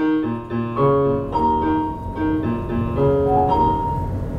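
Piano music: a slow melody of single ringing notes over chords, ending about four seconds in.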